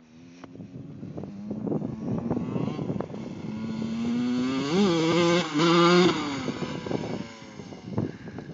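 Honda CR125 two-stroke dirt bike engine revving as the bike rides across a field, its pitch climbing as it accelerates. It grows louder to a peak about five seconds in, then fades as the bike rides away.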